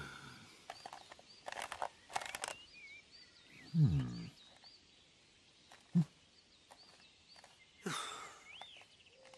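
Faint birds chirping in woodland, broken by two low groan-like sounds that drop in pitch, one at the start and one about four seconds in, plus a few small clicks and a short thump about six seconds in.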